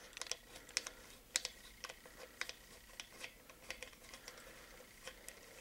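Scattered light clicks and taps, irregular, a few a second, over a faint room hiss.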